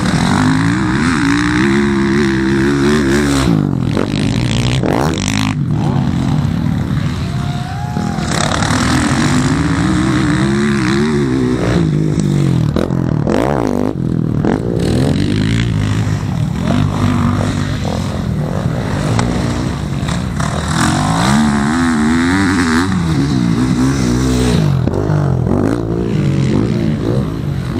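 Motocross bikes racing round the dirt track, their engines revving up and down in repeated waves as riders accelerate and shift. There are a few brief sharp knocks in between.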